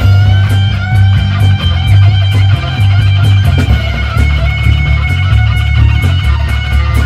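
A boogie rock band playing live: a Stratocaster-style electric guitar over a loud, driving bass line and drums.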